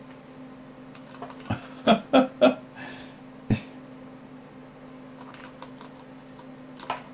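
A few short throaty sounds from a man, three close together about two seconds in and one more a second later, over a steady electrical hum, with faint clicks as chess pieces are dragged on screen with a mouse.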